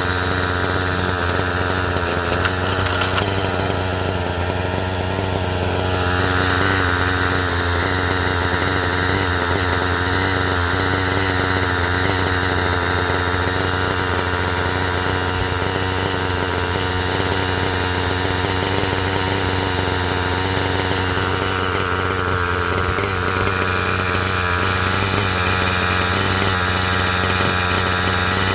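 A steady mechanical hum with a low drone and even overtones. A higher buzz comes and goes twice.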